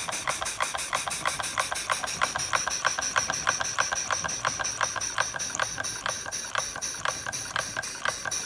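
Stuart No. 9 single-cylinder, double-acting model steam engine running steadily under belt load, its exhaust chuffing in an even rhythm of about eight beats a second. A steady high-pitched whine joins in about two seconds in.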